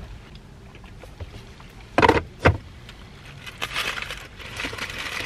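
Two sharp knocks about two seconds in, half a second apart, then the crinkling and rustling of takeout food wrappers being handled.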